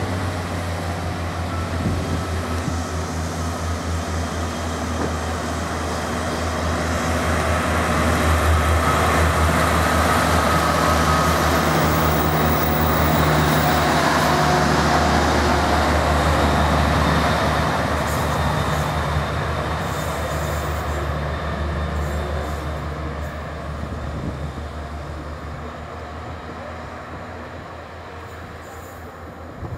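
Class 143 Pacer two-car diesel multiple unit passing close by, its underfloor diesel engines humming steadily over wheel and rail noise. It grows louder as it draws level and fades as it moves away down the line.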